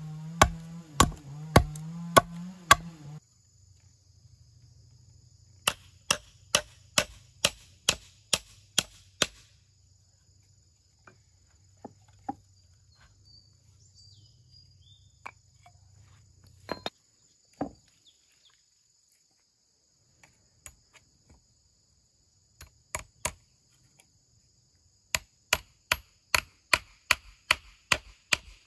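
Hammer nailing wooden sticks onto an upright wooden pole: runs of sharp blows about two a second, a few scattered lighter taps between them, and a quicker run of blows near the end. In the first few seconds, a knife chopping into a stick on a wooden block.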